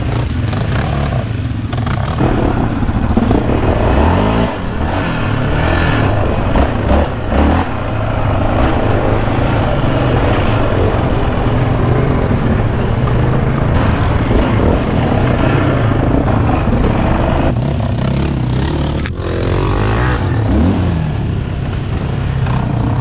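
Yamaha Raptor 700R quad's single-cylinder engine with an aftermarket Monster exhaust, revving up and down as it is ridden along a rough dirt trail.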